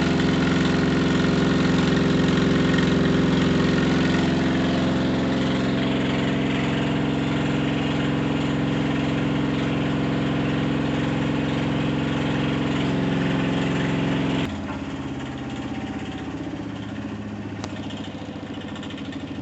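Washing machine on its spin cycle, running with an abnormally loud, steady mechanical noise. About two-thirds of the way through the level drops suddenly, and a quieter running sound carries on.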